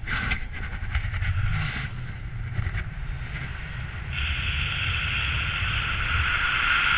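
Airflow rushing and buffeting over an action camera's microphone in paraglider flight, a steady low rumble with a few short knocks early on; about four seconds in, a steadier, higher hiss joins it.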